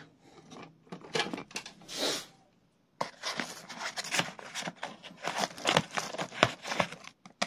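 Scissors snipping and wrapping crinkling and tearing as a pack of firecrackers is cut open and handled, in dense irregular clicks and rustles. The sound drops out briefly about a third of the way in.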